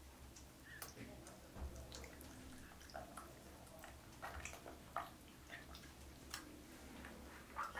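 Faint, scattered wet clicks and smacks of a baby monkey eating mango in a tub of water, with small drips and water movement.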